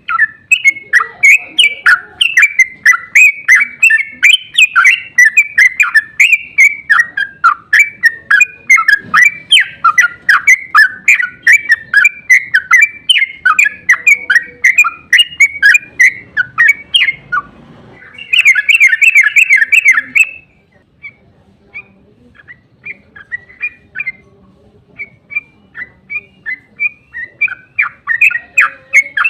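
Yellow-vented bulbul (trucukan) singing a long, rapid run of loud bubbling chirps, the 'ropel panjang' song used to lure other trucukan into answering. About two-thirds in it breaks briefly, gives one dense packed burst, then goes on in sparser phrases.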